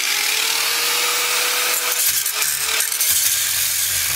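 Angle grinder's abrasive disc cutting through the steel crankshaft of a Homelite two-stroke string trimmer engine: a loud, harsh grinding hiss over the grinder motor's steady whine. The grinding cuts off suddenly about four seconds in, leaving the grinder running free.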